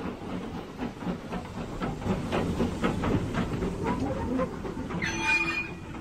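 Steam tank engine chuffing as it moves off, an even beat of about three steam exhausts a second with hiss. Near the end a brief burst with steady tones comes in, followed by a held tone.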